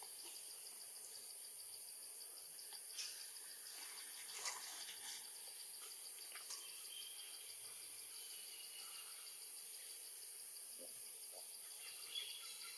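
Faint steady insect chorus: a rapid, even pulsing trill over a high hiss, with a few soft clicks scattered through it.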